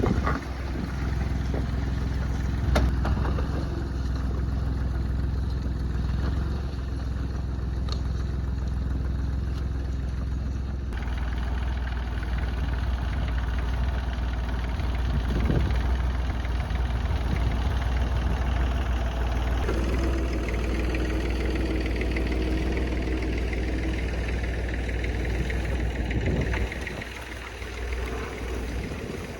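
Perkins P3 three-cylinder diesel engine of a converted Ford Ferguson tractor running steadily at low revs under ploughing load. Its sound changes abruptly about 11 and 20 seconds in and dips briefly near the end.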